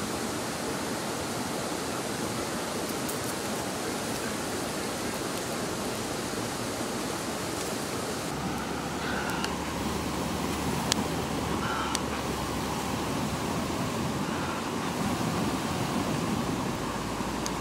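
Steady rushing outdoor noise, with a few sharp clicks about two-thirds of the way in.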